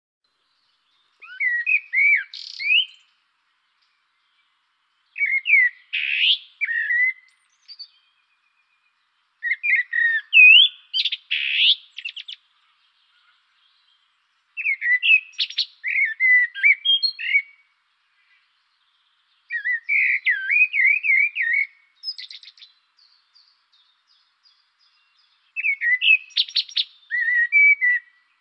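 A songbird singing six warbled phrases of two to three seconds each, a few seconds apart, with near silence between them.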